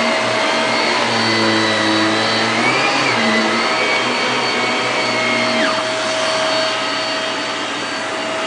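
Shark Rotator Professional Lift-Away bagless upright vacuum cleaner running with a steady motor whine. Its pitch wavers and then shifts about two-thirds of the way through.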